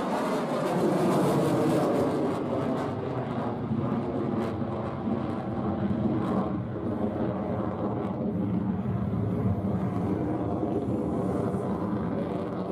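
The jet noise of a twin-engine F/A-18 Super Hornet manoeuvring overhead: a loud, steady, rough rumble whose pitch drops during the first second.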